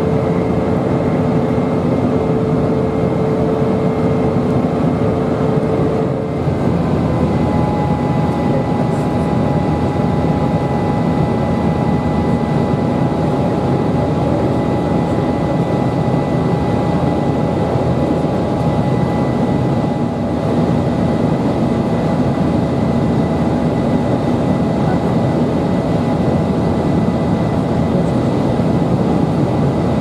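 Steady jet engine and airflow noise heard inside an airliner cabin during the climb after takeoff. A thin whine runs through it, and its pitch shifts higher about six to seven seconds in.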